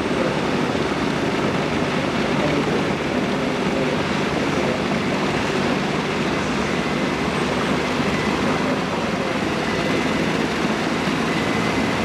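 Lockheed Super Constellation's Wright R-3350 piston radial engines running steadily at taxi power.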